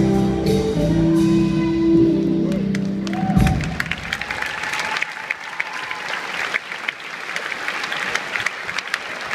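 Latin dance music plays, then stops about a third of the way in. An audience breaks into steady applause that carries on to the end.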